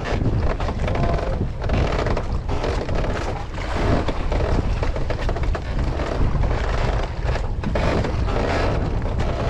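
Wind buffeting the microphone on an open boat deck: a steady, rough, gusting rumble.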